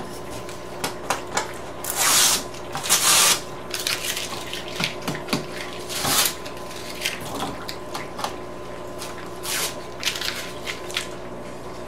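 Utility knife and ruler handled on a twin-wall polycarbonate sheet: a few short scraping strokes, the two strongest about two and three seconds in, and scattered clicks and knocks of plastic and metal being moved and set down.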